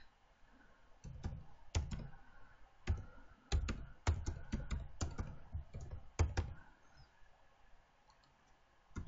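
Typing on a computer keyboard: a run of irregular keystrokes, then a pause of about two seconds near the end.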